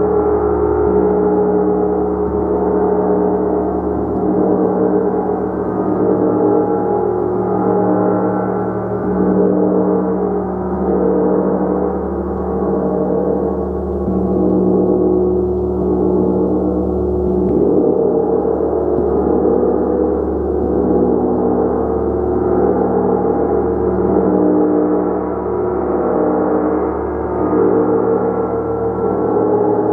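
Large hammered gong played continuously: a sustained wash of many overlapping tones that swells and ebbs every couple of seconds, with no sharp strikes standing out.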